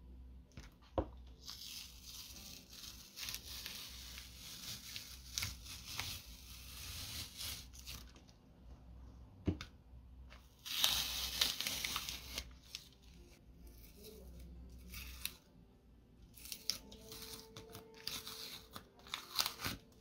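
Hand work on a 3D-printed PLA prop part: dry scraping and rubbing in three long stretches, the loudest about halfway through, with a few sharp clicks and taps.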